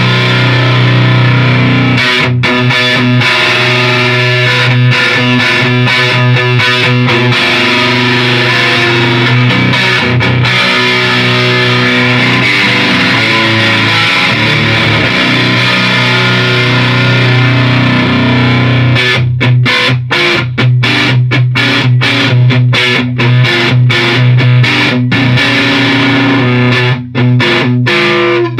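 Electric guitar played through a Beetronics Tuna Fuzz pedal into a Marshall Plexi amp and Marshall cabinet, picked up by a room microphone. Fuzzy, distorted chords are held and left ringing at first; from about two-thirds of the way in they turn into short, choppy strikes cut off between hits.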